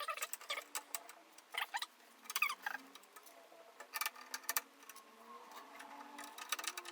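Screwdriver driving small screws through a motherboard into the case's standoffs: irregular light clicks and metallic scrapes of the bit working in the screw heads.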